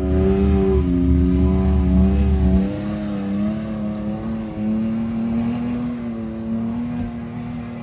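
Pickup truck engine pulling through soft dune sand, its revs rising and falling, with a heavy low rumble that drops away about two and a half seconds in. After that it settles into a steadier drone that slowly fades.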